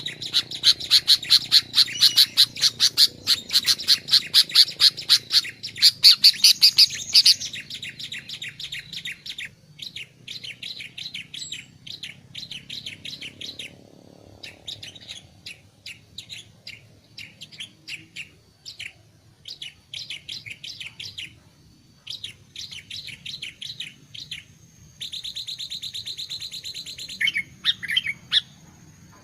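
Sooty-headed bulbul (kutilang) calling: runs of short, sharp high chirps, about three to four a second, loudest for the first seven seconds and then in softer groups, with a fast dense trill and a few sliding notes near the end.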